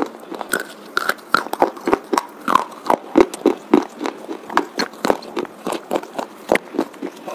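Slate pencils being bitten and chewed: a quick run of sharp, dry crunches, about three or four a second.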